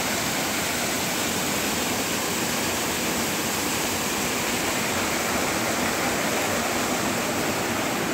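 Steady rush of a waterfall splashing down over rocks into a shallow, rocky stream: an even, unbroken hiss of falling and running water.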